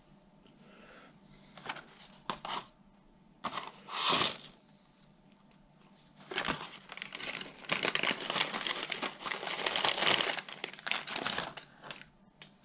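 Burger King paper bag and paper fry carton crinkling and rustling as fries are shaken out onto a paper plate. A few short rustles come first, then continuous crinkling for about five seconds from the middle.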